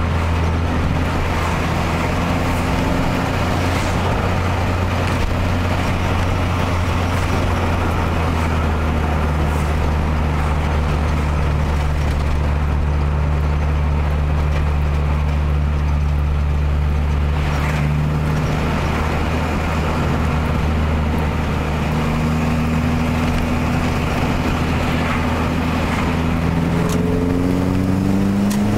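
Car engine and road noise heard from inside the cabin while driving at a steady speed. Near the end the engine note climbs as the car speeds up.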